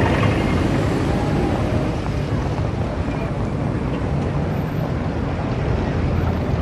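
City street ambience sound effect meant to evoke a 1930 city: a steady rumble of traffic, with no single event standing out.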